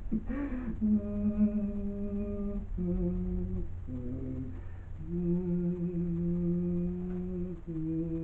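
A low voice humming a slow tune in long held notes, moving to a new pitch every second or two.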